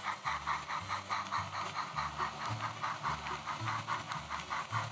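Sound-equipped HOn3 model steam locomotive chuffing steadily at about five chuffs a second as it pulls its train, over a low running rumble.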